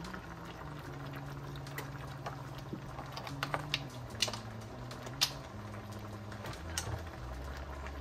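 Beef broth and vegetables simmering in a Dutch oven: liquid bubbling steadily, with scattered sharp pops.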